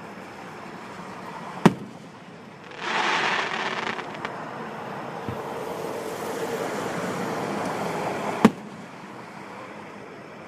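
Aerial fireworks shells bursting: two sharp booms about seven seconds apart, with a rushing hiss between them that starts loud and then settles to a steady level.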